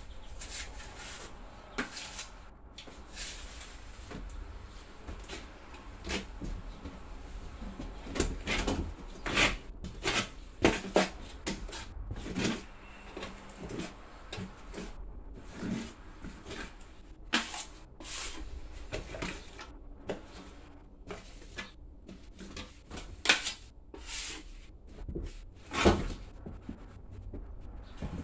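Drywall knife scraping and dabbing joint compound onto a drywall patch as a textured coat is worked in: irregular scrapes with occasional sharper knocks, the loudest a few in the middle and near the end.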